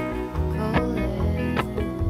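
Background music: a soft song led by plucked guitar.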